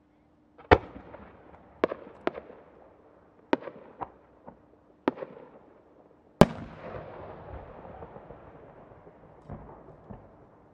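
12-inch (10-gō) Japanese chrysanthemum firework shell with rising attachments: a string of sharp bangs over the first five seconds, then the main burst, the loudest bang, about six and a half seconds in, followed by a long rolling echo.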